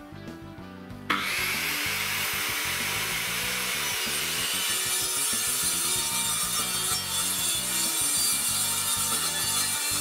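Background music, then about a second in a Makita circular saw cuts into a wooden board and keeps ripping through it steadily, a loud, even hiss of blade through wood.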